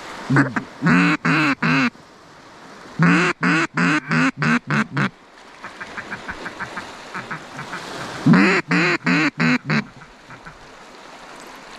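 Mallard quacking: three runs of loud, short quacks, the middle run a longer series of about eight.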